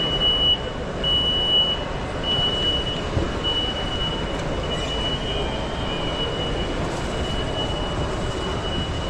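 A high electronic beep repeating in beeps of about half a second to a second with short gaps, over a steady rumbling background noise.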